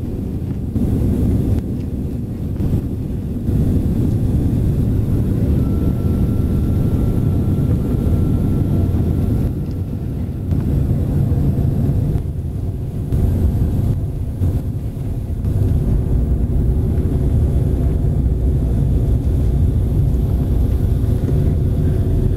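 Steady low rumble of jet engines and airflow inside the cabin of a Bombardier CRJ900 regional jet on its descent. A faint steady whine sits above it for a few seconds in the middle.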